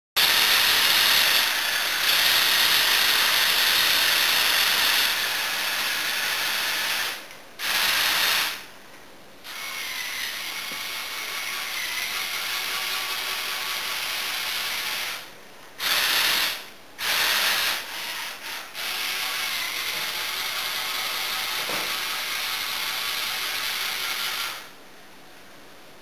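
LEGO Technic caterpillar-track vehicle driven by Power Functions motors: motor whine with plastic gears and tracks clattering. It runs in stretches with several short stops, and goes quiet near the end.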